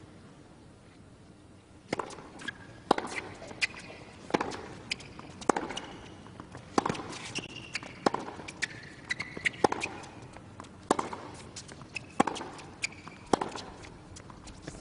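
Tennis ball struck back and forth with racquets in a rally on a hard court, one sharp hit about every second, starting about two seconds in, with short high shoe squeaks between the hits.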